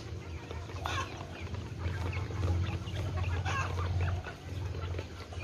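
Kampung chickens clucking, with short calls about a second in and again around three and a half seconds, over a steady low hum.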